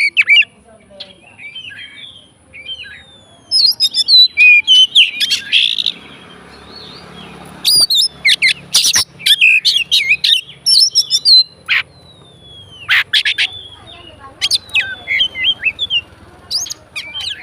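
Oriental magpie-robin (kacer) singing a loud, varied song in bouts of a few seconds: rapid chattering notes mixed with downward-sliding whistles, with short pauses between bouts.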